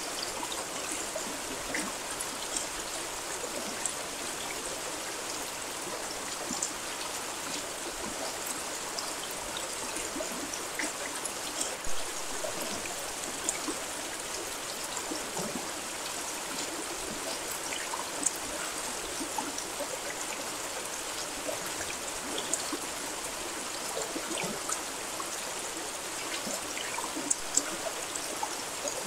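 Steady rain: an even hiss with many small drops tapping, and a few louder drops now and then.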